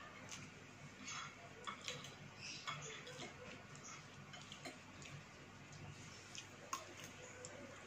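Faint eating sounds: a metal spoon and fork clinking lightly against a glass bowl, a few scattered clicks, with slurping and chewing of noodles.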